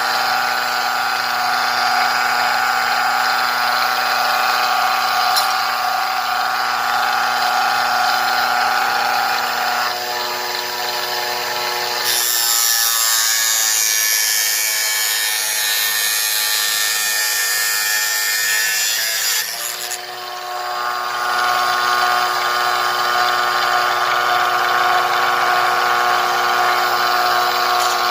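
Homemade cutting machine driven by an 895 DC motor, running with a steady whine. About twelve seconds in, a harsh high hiss sets in for about eight seconds while the whine drops and wavers, as the blade cuts under load, then it returns to running free.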